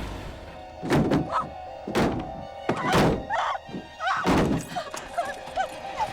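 Four heavy thuds, each about a second after the last, over tense horror-film score music.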